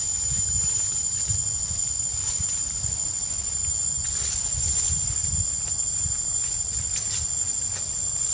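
Forest ambience: a steady high-pitched insect whine over a low, uneven rumble, with a sharp click about seven seconds in.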